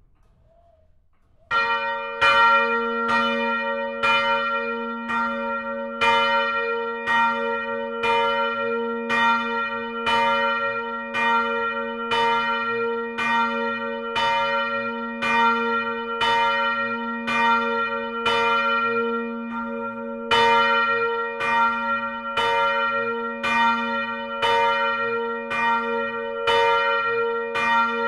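Church bell ringing: it starts about a second and a half in, then strikes in a steady rhythm, a little faster than one stroke a second, each stroke ringing on into the next.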